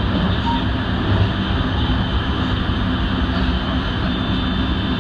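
JR West 223 series electric train running at speed, heard from inside at the front of the train: a steady rumble of wheels on rail with a constant low hum and a faint high tone.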